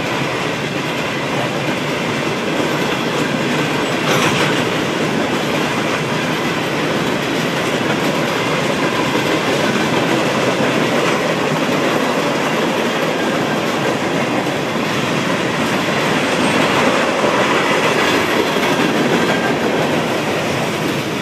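Norfolk Southern freight train's hopper cars rolling steadily past, wheels running on the rails.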